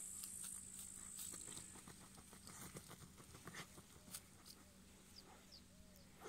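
Dog digging and nosing in dry cut grass: faint rustling and scratching of hay, with a high insect trill that stops about two seconds in.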